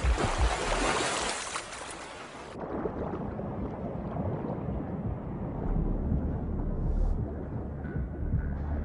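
Water noise at the sea surface, cutting off suddenly about two and a half seconds in to a low, muffled underwater rumble.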